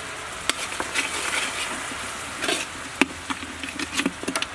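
Seasoning sauce bubbling and sizzling in a hot wok while a metal spatula and spoon stir it, scraping the pan and clinking against it a few times.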